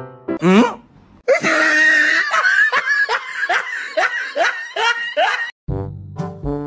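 Laughter: a run of quick breathy 'ha's, two or three a second, lasting about four seconds, after a short rising glide. Brass music comes in near the end.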